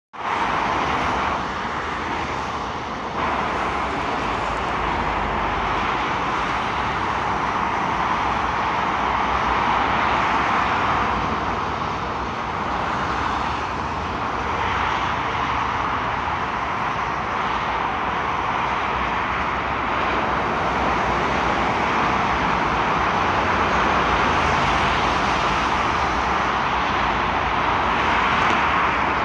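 Continuous traffic noise of a busy motorway: cars, vans and articulated lorries passing at speed, mostly tyre noise, swelling a little as nearer vehicles go by.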